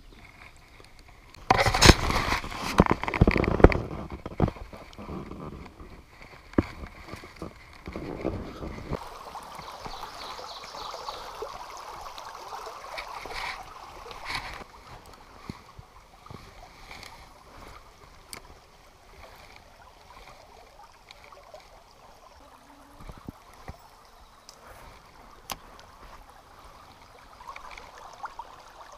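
A loud burst of scraping and knocking lasting about two seconds near the start, then a small forest creek trickling and gurgling over rocks, with scattered light knocks.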